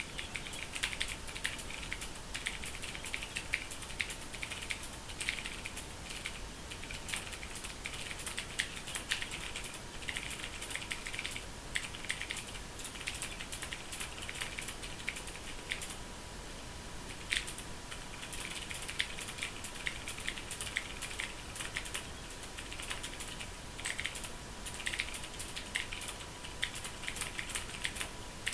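Fast typing on a Ducky Mecha mechanical keyboard: a rapid, continuous clatter of key clicks, with a brief lull about halfway through and one sharper key strike just after it.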